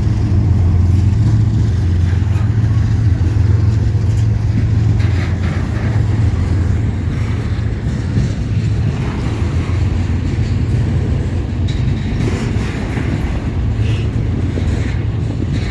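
Double-stack intermodal freight train rolling past at close range: a steady low rumble of steel wheels on rail and well cars. The deep drone of the just-passed diesel locomotive is strongest in the first few seconds and then eases off.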